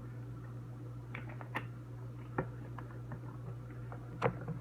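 Foamy glue-and-shaving-cream slime being stirred with detergent: soft, irregular sticky clicks and squelches, with a sharper one near the end, over a steady low electrical hum.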